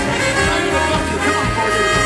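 Live swing band playing an instrumental passage, with no vocals, over a steady bass line.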